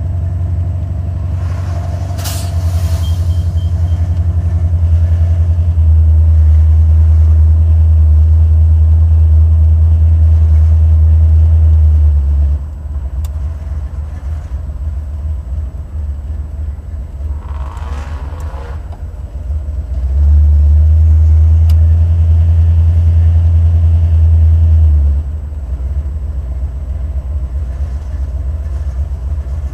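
Buick Stage-1 455 V8 running while the car is driven, a deep low drone that swells much louder twice for several seconds under throttle and then settles back.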